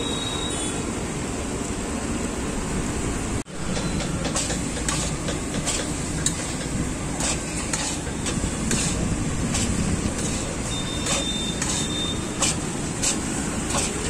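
Gas burner running with a steady rush under a large iron kadhai, while a metal spatula scrapes and clinks against the pan as a batch of poha is tossed and mixed. The clinks come about once or twice a second, and the noise drops out briefly about three and a half seconds in.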